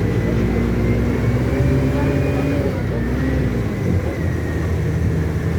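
Mercedes-Benz OF-1722M city bus diesel engine running under load. Its note rises about a second and a half in, then drops back about four seconds in, as at a gear change, with a thin high whine over it.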